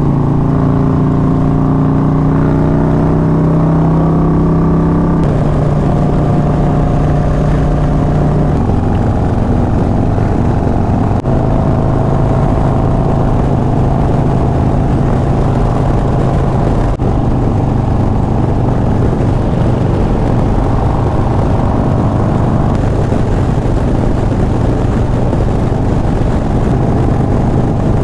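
Harley-Davidson Road Glide's Milwaukee-Eight V-twin running at highway speed. It rises slightly in pitch over the first five seconds, shifts a couple of times, then holds steady.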